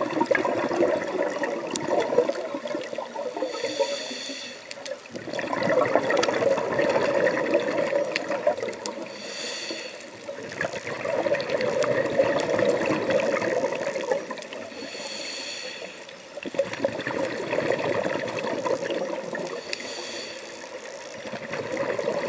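A scuba diver's regulator breathing underwater: a short hissing inhale about every five seconds, four times, each followed by several seconds of bubbling, gurgling exhaust as the breath is let out.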